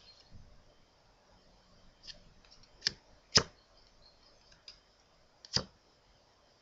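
Playing cards handled by hand, giving short sharp card snaps: two close together about three seconds in, one more about two seconds later, and a few fainter clicks between.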